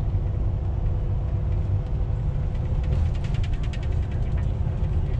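Steady low rumble of a bus's engine and road noise heard from inside the cabin while riding, with a brief run of rapid light rattling about three seconds in.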